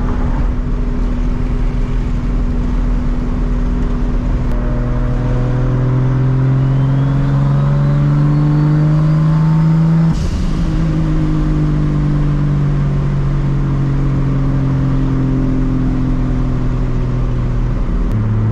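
Straight-piped MKIV Toyota Supra's 2JZ inline-six with a big turbo, heard from inside the cabin while driving: the engine climbs steadily in pitch for several seconds with a faint rising turbo spool whistle, then drops with a brief hiss about ten seconds in and slowly falls off, stepping lower again near the end.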